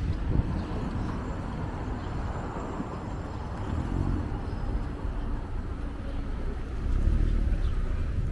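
City street traffic: cars driving along a busy boulevard, a steady low rumble of engines and tyres that swells a little near the end.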